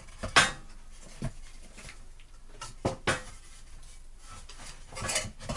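Scattered wooden knocks and clunks as 2x4 boards are handled and set in place, with a short rustling stretch near the end.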